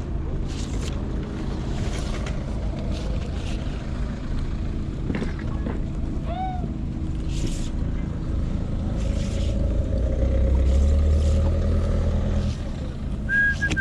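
A motor vehicle's engine runs steadily nearby, and its rumble swells louder for a few seconds about nine seconds in, then drops back. Near the end a short, steady high beep sounds.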